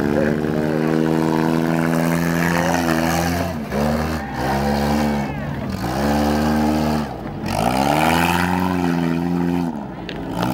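Demolition derby cars' engines revving up and falling back, about five times in a row.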